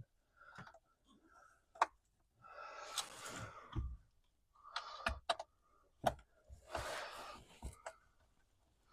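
Hand work on a car's dashboard: scattered light clicks and knocks, with two rustling noises of about a second each, one near the middle and one later on.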